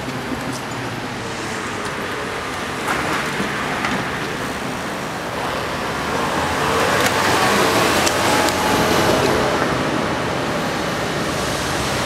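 Steady street traffic noise with the rumble of a passing electric train that grows louder past the middle, with a few sharp clicks of wheels over rail joints.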